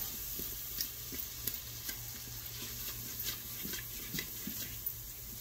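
Onions sizzling in butter in an Instant Pot's stainless steel inner pot on sauté, with a spatula stirring them and scraping the pot in irregular light taps.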